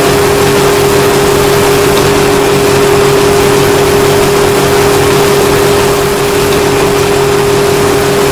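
Fujitsu air conditioner running with a loud, steady hum over a rushing noise. It is the noise of a failing unit at the end of its life.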